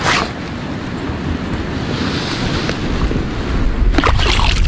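Wind buffeting the microphone with a steady rumble that grows stronger in the second half, over the wash of water at the shore. There are brief rustling bursts at the start and again about four seconds in.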